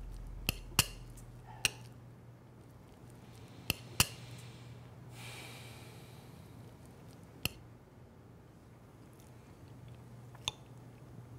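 Cutlery clinking against dinner plates: about seven separate sharp clinks spread out, the loudest about four seconds in, over a low steady hum.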